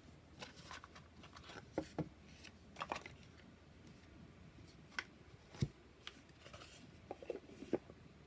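Oracle cards and their box handled on a table: soft rustling with scattered light taps and clicks, the strongest a dull knock about halfway through.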